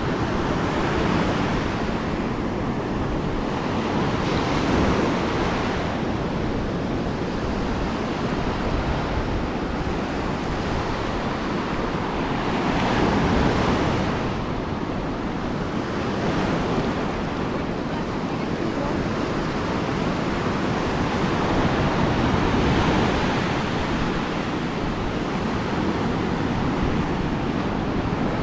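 Ocean surf breaking on a beach: a continuous wash of waves that swells louder every several seconds as each wave comes in.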